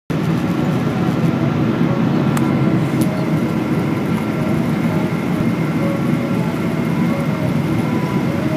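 Steady cabin noise inside a twin-engine Boeing 777-200 airliner on its approach to landing: engine and airflow noise with a few faint steady tones above it. Two light clicks come about two and a half and three seconds in.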